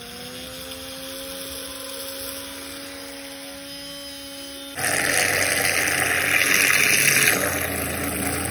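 Small DC motor of a homemade whisk mixer spinning freely with a steady whine. About five seconds in, the whisk churns liquid in a glass dish, a much louder, noisier whir with sloshing.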